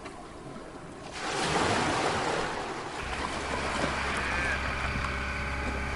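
Steady rushing noise of wind and surf that starts suddenly about a second in, with a low steady hum joining about halfway.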